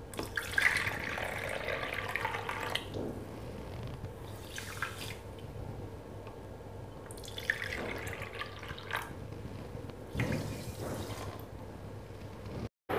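Water poured from a measuring cup onto granulated sugar in a nonstick kadhai, splashing and trickling in three separate pours: the water for a sugar syrup.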